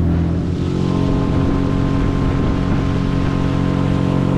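Outboard motor of a small skiff running steadily at speed across open water, with wind and water rushing past.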